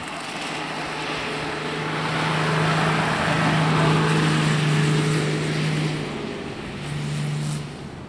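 Ute driving past on beach sand. Its steady engine hum swells to its loudest in the middle, breaks off a little after six seconds, returns briefly and then fades as it moves away.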